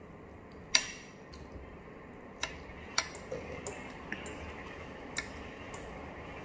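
Spoon and fork clinking and scraping against a plate while eating, about six separate sharp clinks, the loudest about a second in and near the middle.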